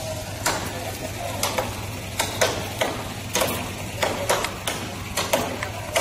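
Irregular sharp chopping knocks, roughly two a second, of a blade hacking at the branches of a fallen banyan tree.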